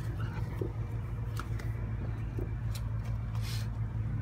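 A steady low hum, with a few faint clicks and brushing noises over it.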